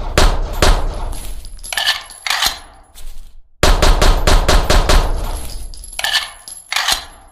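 Browning Hi-Power pistol sound effect: a string of shots in quick succession, then two sharp metallic clacks. The same sequence plays again about three and a half seconds in.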